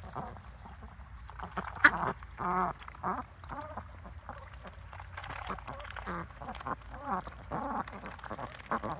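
A flock of domestic ducks quacking and chattering in many short, repeated calls as they feed in the shallows. There is a sharp, loud click about two seconds in.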